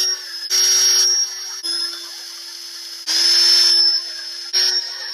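Handheld power tool, a drill or driver, whining in several short trigger pulls, some louder and rougher and some lighter, as it runs fasteners out during the LS engine teardown.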